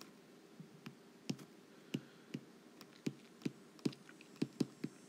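Stylus tip tapping and clicking on a tablet's glass screen during handwriting: a run of short, light, irregular taps that come faster in the second half.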